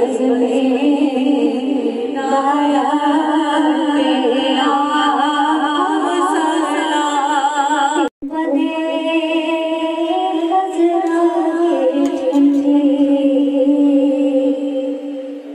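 Women singing an unaccompanied devotional naat into a microphone, the lead voice holding long wavering notes. The singing breaks off for an instant about eight seconds in, then carries on.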